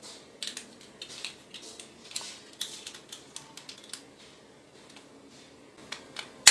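Plastic toy glasses being handled: scattered light clicks and rustling, with a sharper click near the end.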